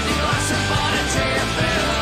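Loud rock music with singing and guitar, steady and continuous.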